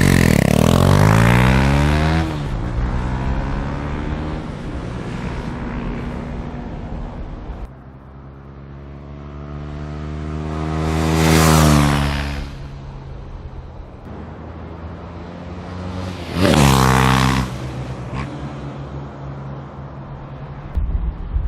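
KTM Duke 390's single-cylinder engine through a Yoshimura Alpha-T slip-on exhaust, revving with rising pitch at the start, then two drive-bys: one building up to pass about eleven seconds in with the pitch dropping as it goes by, and a quicker pass about five seconds later.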